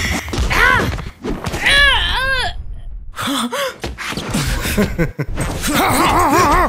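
Wordless fighting cries, grunts and gasps from a dubbed anime fight: a string of short yells that rise and fall in pitch, with punch and kick impact effects between them.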